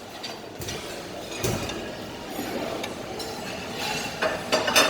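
Dishes and serving utensils clinking against plates and pans, with a knock about one and a half seconds in and a burst of clatter near the end, over steady background noise.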